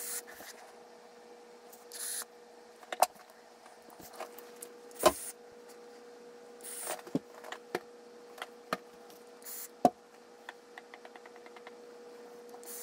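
Several short, breathy hisses of a man exhaling vape clouds, over a steady hum in the room, with scattered sharp clicks and knocks of handling and a run of small ticks near the end.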